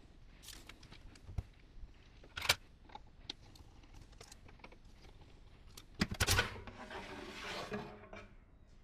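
Handling noises from dismantling the metal enclosure of an AGA Thermovision display unit: scattered clicks and taps while its screws are undone, a cluster of metal knocks about six seconds in, then about two seconds of scraping as the sheet-metal cover slides off.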